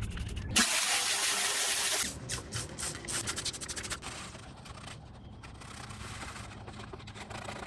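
Trigger spray bottle of degreaser spraying onto a plastic battery tray: a loud hiss about half a second in, lasting about a second and a half. It is followed by quieter rubbing as a hand scrubs the sheet metal of the battery-tray area in the engine bay.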